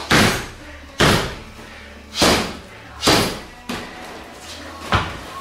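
Downward vertical punches (otoshi tate zuki) landing on a striking pad laid over a heavy bag on the floor. Five heavy thuds come about a second apart, with a lighter one between the fourth and fifth.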